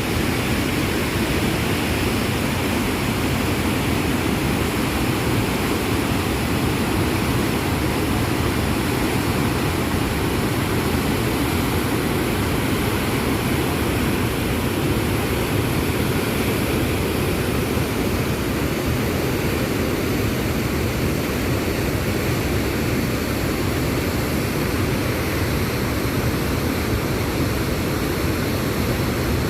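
Waterfall's falling water, a steady, loud, unbroken rushing noise.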